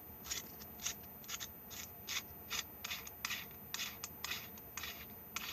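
Threaded end cap of an aluminium flashlight being unscrewed by hand to open the battery compartment: short rasping twists of the threads, about two a second.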